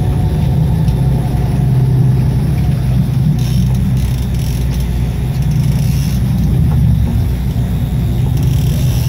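Sportfishing boat's engine running with a steady low rumble, mixed with wind and sea noise.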